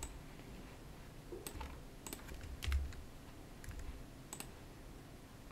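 Several scattered clicks of a computer keyboard and mouse during desktop work, with one soft low thump near the middle.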